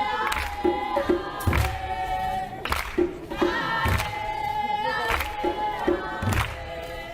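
Music: a choir of voices singing held notes over a regular low drum beat.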